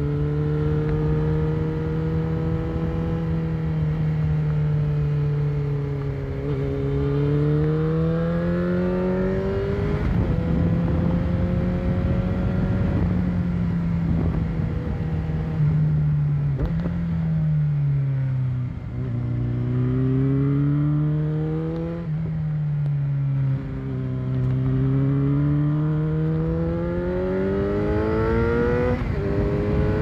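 Motorcycle engine under way, its pitch climbing and falling over and over as the rider accelerates and slows, with sudden steps in pitch at gear changes, over a steady rush of wind noise.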